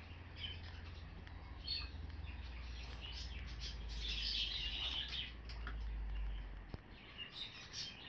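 A dog whining in repeated short, high-pitched squeaks, thickest around the middle, over a low steady hum that fades near the end.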